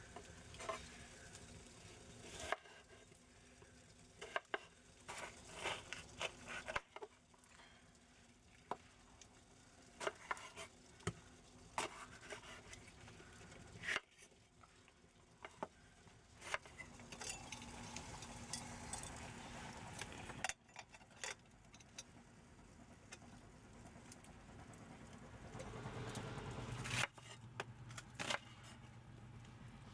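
Kitchen knife cutting red bell peppers and onion on a wooden cutting board: irregular taps and knocks of the blade against the board.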